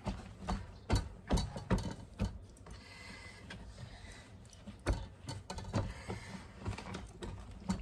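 Hands patting and rubbing wet celery stalks inside a cloth kitchen towel on a wooden counter: irregular knocks of the stalks and hands against the board, with cloth rustling between them.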